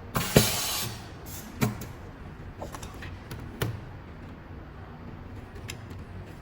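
Vacuum OCA laminating machine letting out a short hiss of air with a knock, followed by two sharp knocks about two seconds apart and a few light clicks.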